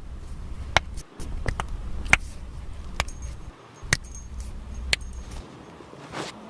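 Sharp cracks of spinal joints during a chiropractic adjustment, about seven clicks spread over five seconds and loudest around two seconds in. A low rumble runs under them and stops about two thirds of the way through.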